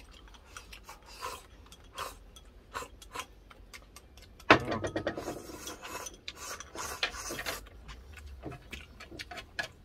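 Eating sounds over a meal of crisp-fried fish: scattered small clicks and crunches, with a sharp knock about four and a half seconds in followed by about three seconds of dense crunching and clicking.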